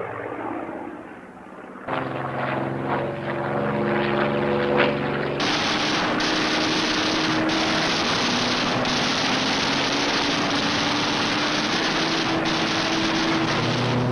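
Piston-engine propeller aircraft in flight: a steady engine drone, joined about five and a half seconds in by a loud, dense rush of engine noise that holds steady, with a tone that slowly sinks in pitch.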